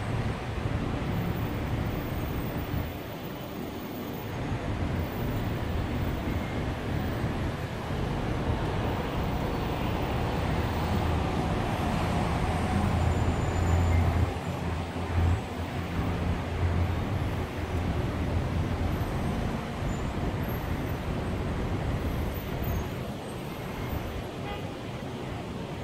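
Steady low rumble of road traffic, swelling a little midway and easing again.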